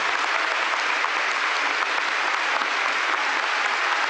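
Sustained applause from a concert audience, steady and dense.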